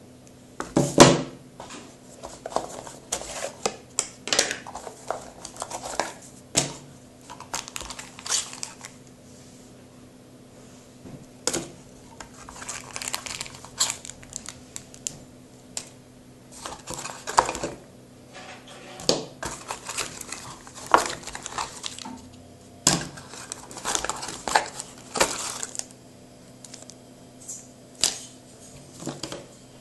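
Hands handling a new Samsung Galaxy S5 smartphone and its packaging: scattered clicks, taps and crinkling of plastic and cardboard, coming in irregular bunches with short pauses between them.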